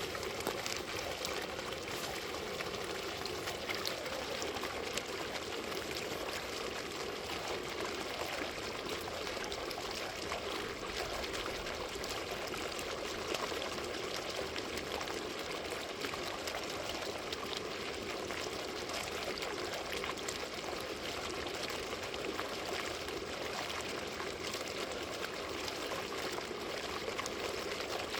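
Water fountain running, its falling water splashing steadily and evenly.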